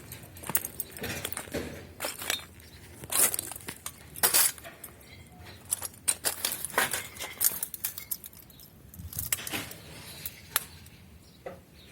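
Hard objects clinking and knocking together in a string of irregular sharp clinks, with some rustling between them.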